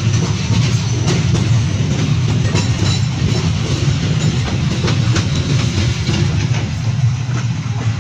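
Loaded cement freight wagons rolling past close by: a steady heavy rumble of steel wheels on the rails, with sharp clicks and clacks here and there.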